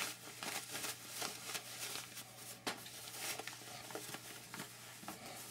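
Cloth rustling and brushing in a string of soft, irregular scuffs as a sewn fabric face mask is turned right side out by hand.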